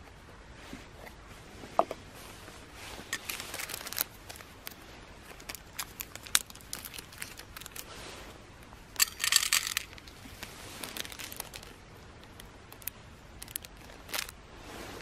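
A small plastic bag crinkling and rustling as it is handled, with scattered light clicks and a brief metallic ring from a small tin being opened about two seconds in. The loudest crinkling comes in a short burst about nine seconds in.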